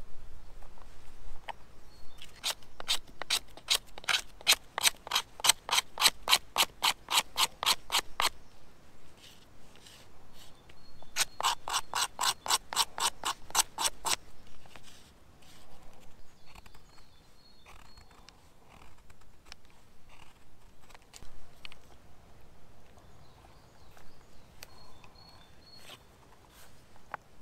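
A knife blade scraping a wooden stick into fine tinder shavings over a piece of bark, in quick, even strokes, about three or four a second. The strokes come in two long runs, then turn lighter and more scattered.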